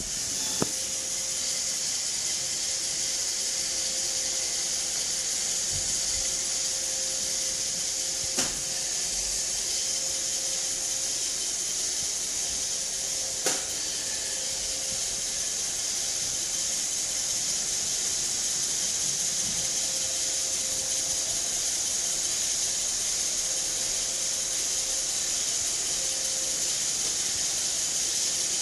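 iRobot Roomba robot vacuum running with a steady high whir and a faint low hum, with three short sharp knocks: just after the start, about eight seconds in and about thirteen seconds in.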